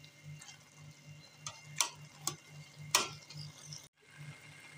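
A perforated steel spoon scrapes and clicks against an aluminium karahi a few times as mashed boiled carrots are stirred over high heat, with a faint sizzle as the liquid cooks off. Under it runs a low hum pulsing about four times a second, and the sound cuts out for a moment near the end.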